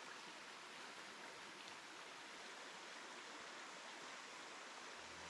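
Shallow creek running over rocks and sand: a faint, steady babbling hiss of water.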